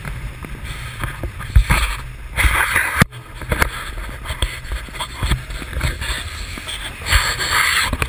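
Wind buffeting a GoPro's microphone in paragliding flight: a steady low rumble full of small thumps, with louder gusts of hiss about two and a half seconds in and again near the end.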